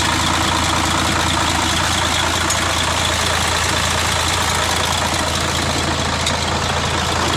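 Mercedes-Benz Actros 1841's V6 diesel idling steadily during an injector check for a hard-starting fault. The mechanic finds some cylinders' injectors not firing properly, with weak injection pressure.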